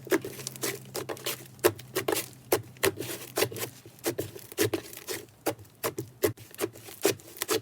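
Clay slime being squished and kneaded by hand, giving irregular sharp sticky clicks and pops, several a second.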